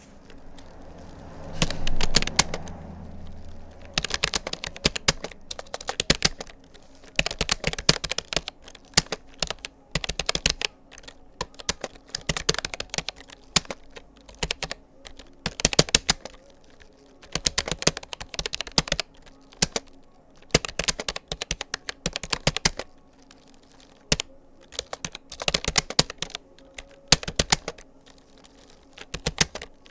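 Rapid typing on a Rapoo computer keyboard: quick key clicks in bursts of about a second, word by word, with short pauses between. About two seconds in comes a louder, duller knock.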